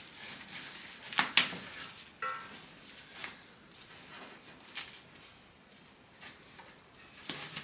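Stainless steel pot and lid being handled, giving scattered knocks and clinks. One clink, a little over two seconds in, rings briefly like struck metal.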